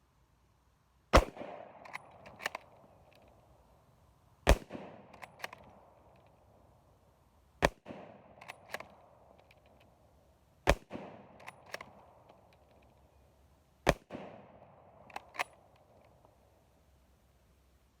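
Remington M1903 bolt-action rifle firing five shots about three seconds apart, each report trailing off in echo. Each shot is followed by two quick metallic clicks about a second later as the bolt is worked to chamber the next round.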